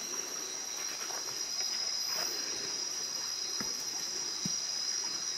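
Steady high-pitched chorus of night insects, crickets or katydids, trilling without a break, with a few faint knocks and rustles.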